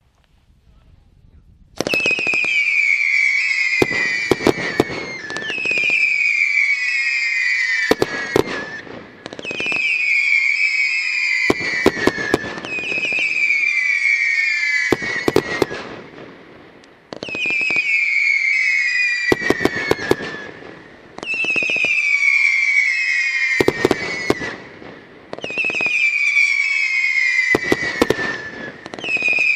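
A 100-shot 30 mm fireworks cake firing. About two seconds in it starts with a shot roughly every two seconds, each a whistle falling in pitch, with sharp cracks from the launches and bursts.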